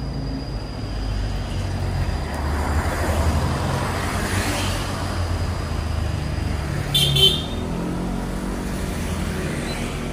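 Road traffic passing close by: vehicles rumbling past, swelling and fading, with a short vehicle horn toot about seven seconds in.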